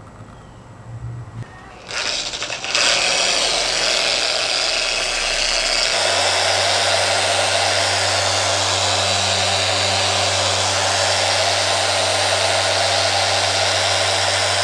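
Electric car polisher running with a foam pad pressed against a painted door pillar, working compound into the paint. It starts up about two seconds in, changes pitch about six seconds in, then runs steadily.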